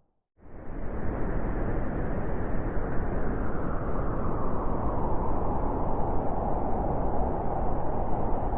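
Steady winter wind blowing, an even rushing noise. It drops out for a moment at the very start and swells back in within about a second.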